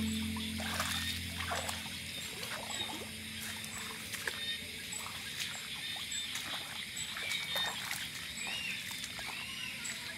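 Night insects chirping and trilling, with short chirping calls and scattered splashy, swishing steps through wet grass and shallow water. A held music tone fades out over the first two seconds.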